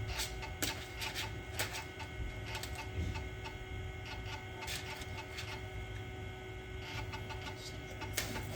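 Macintosh SE running: a steady electrical hum with several constant tones, a faint regular ticking about three times a second, and scattered sharp clicks.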